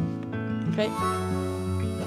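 Instrumental background music with held notes that change every fraction of a second.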